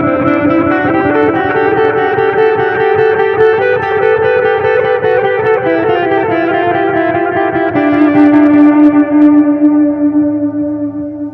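Electric guitar (Squier Jazzmaster) played through a multi-head tape-style delay pedal into a Fender Tone Master Deluxe Reverb amp. It plays slow held notes that repeat in dense, old-school analog-style echoes and die away near the end.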